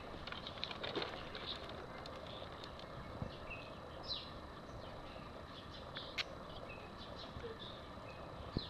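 Small birds chirping faintly in short, high, falling notes every second or so over quiet outdoor background noise, with a sharp click about six seconds in.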